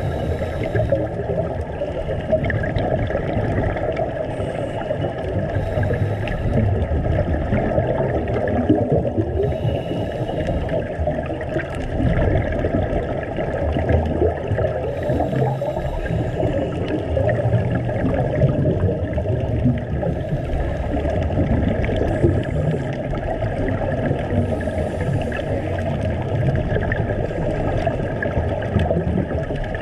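Underwater sound recorded on a scuba dive: a steady rumble of water and bubbles, with brief hissing breaths every few seconds.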